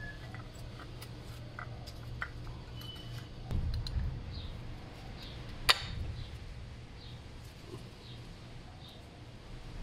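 Small metallic clicks and knocks from a brake caliper being handled and turned over by hand, with one sharp click a little past halfway.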